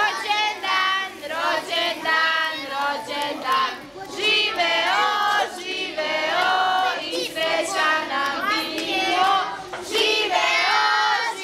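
A group of children singing together in chorus, a birthday song sung around a cake with lit candles.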